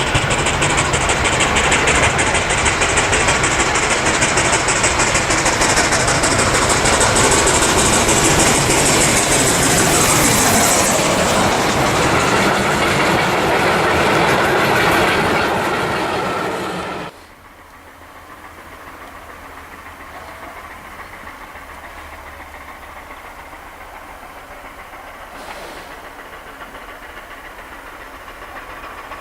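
FS Class 685 steam locomotive and its carriages passing close by: a loud rush of steam hiss and clattering wheels over the rail joints, the high hiss fading partway through. About two-thirds of the way in, the sound cuts off suddenly to a much quieter, steady rumble.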